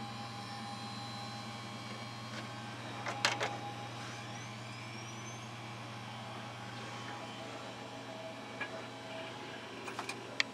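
Several old desktop computers starting up: a steady hum of cooling fans and spinning drives, with a cluster of clicks about three seconds in, faint rising whines a second or so later, and a few more clicks near the end.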